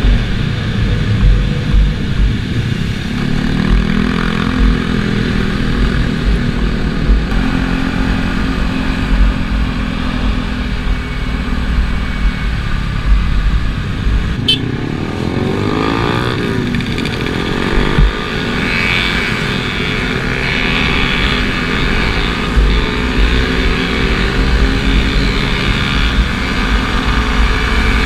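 Motorcycle engine running steadily while riding, with wind rush on the bike-mounted microphone and other motorcycles close by. About halfway through, the engine pitch sweeps up and down once, and there is one short click.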